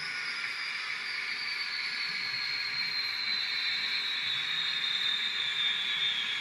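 Gas-turbine sound from the LokSound sound decoder in an N scale GTEL turbine locomotive model: a steady jet-like hiss with a high whine that slowly falls in pitch.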